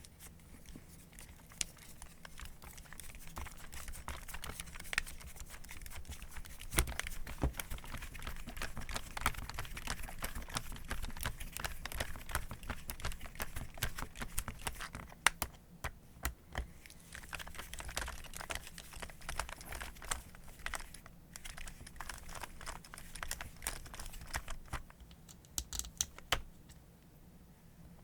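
Dense, irregular clicking, tapping and rustling of small metal parts and tools being handled by hand, with a few sharper knocks about 7 and 15 seconds in.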